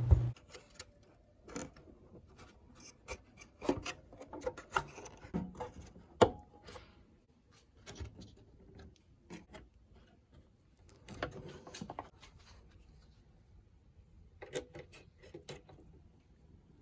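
Scattered plastic clicks, taps and rubbing as the locking tabs on the back of a BMW X3 F25 tail lamp assembly are worked loose to free the LED bulb carrier, with one sharper click about six seconds in.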